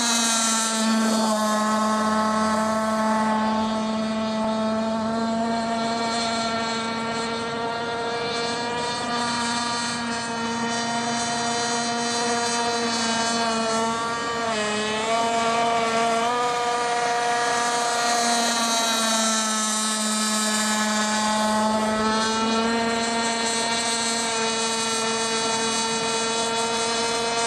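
Small two-stroke gas engine of a radio-controlled F1 outboard racing boat running at speed with a steady note. Its pitch dips briefly about halfway through, then picks back up, and sags a little again later on.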